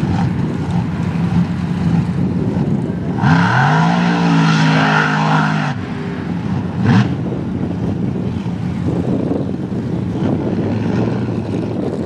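Mud truck's supercharged 540 big-block V8 on alcohol revving hard for about two and a half seconds, its pitch rising and held high, then one short rev blip about a second later, over a steady engine drone.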